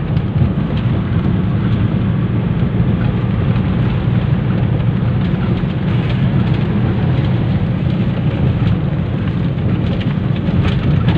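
Steady low rumble and hiss of a vehicle driving on a highway, heard from inside its cabin: engine, tyre and wind noise.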